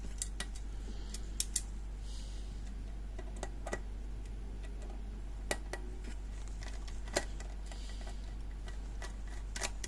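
Small, sharp metallic clicks and ticks at uneven intervals, with a faint scrape now and then, as a small screw is worked back into a lever lock's case by hand.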